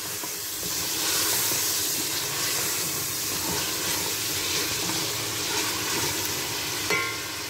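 Mutton pieces sizzling steadily as they fry with tomato masala in a pot, being stirred: the bhunai (browning) stage of the meat.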